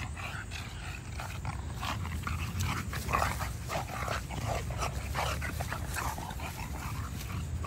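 Two American bully dogs play-wrestling, making a steady run of short, irregular dog noises.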